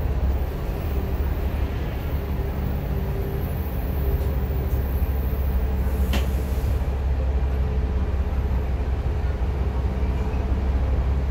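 Single-deck bus engine running, a steady low drone heard from inside the passenger cabin, with one brief sharp noise about six seconds in.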